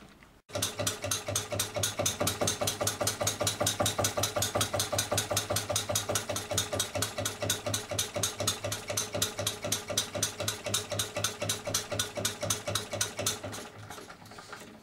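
Home-built single-cylinder horizontal model diesel engine (20 mm bore, 44 mm stroke, converted from a hot bulb engine) running with a fast, even beat, then fading out near the end as it slows to a stop.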